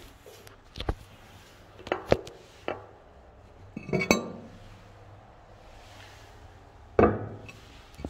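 Porcelain toilet cistern lid being handled and taken off: a series of hard ceramic clinks and knocks, with two louder clatters, one about halfway through and a heavier one near the end.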